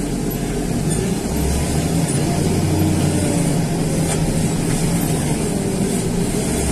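John Deere wheel loader's diesel engine running under load, heard from inside the cab while the bucket hydraulics are worked. The engine note strengthens about a second in and stays heavy.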